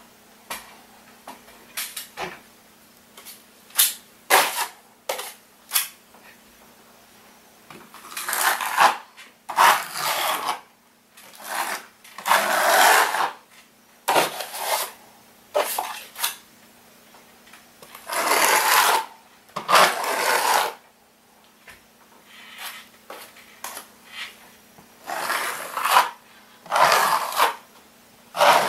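A steel drywall knife scrapes joint compound in a metal mud pan and spreads it across ceiling patches. A few light clicks and taps come first, then a series of scraping strokes, each about a second long.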